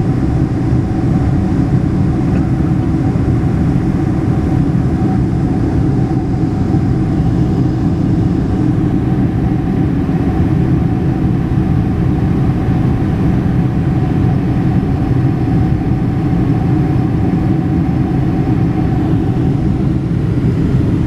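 Steady cabin noise of a Boeing 747-400 climbing out: its four jet engines and the airflow over the fuselage make a deep, even rumble, with a thin steady tone above it.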